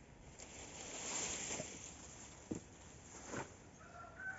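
Rustling of dry palm fronds with a few light knocks of wood as a palm-thatched shelter roof is handled. A faint whistle-like tone begins near the end.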